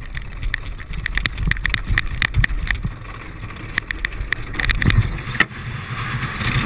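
Bobsled push start: the crew's spiked shoes click quickly on the ice, then, about five and a half seconds in, the sled's runners take over with a steady hiss and low rumble as it slides down the ice track.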